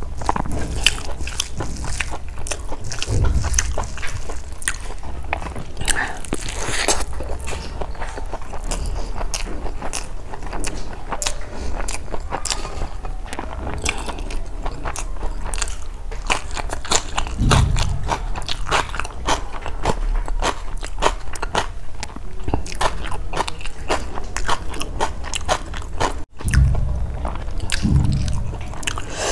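Close-miked eating of rice and curry by hand: steady chewing with dense wet smacking clicks and some crunching, a few low thuds, and a brief break about 26 seconds in.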